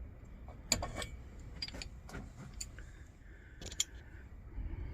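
Coleman lantern's metal parts being handled and threaded together: a scattered string of sharp clicks and clinks, with a short steady squeak for about a second near the middle.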